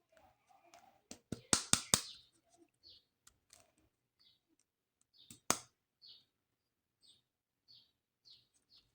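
Sharp clicks and taps of plastic toy parts and packaging being handled: a cluster of four or five clicks about a second in, one loud click about five and a half seconds in, then soft light ticks about every half second.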